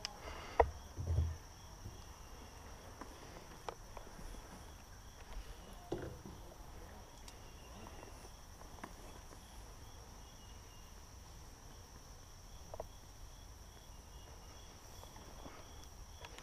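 Insects trilling steadily in a high, thin continuous note, with a fainter pulsing chirp beneath it. A few sharp clicks and rustles break in, the loudest click about half a second in.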